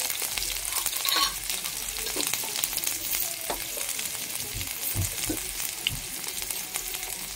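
Hot oil sizzling and crackling in a nonstick frying pan as green chillies, ginger-garlic paste and cumin powder fry in it, with a few low knocks around five seconds in.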